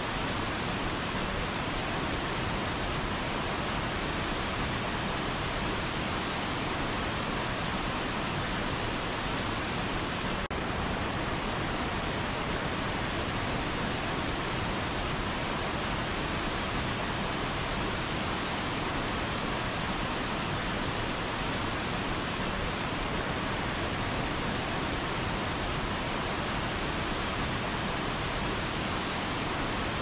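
Small waterfall cascading over rocks into white water: a steady, even rush of water.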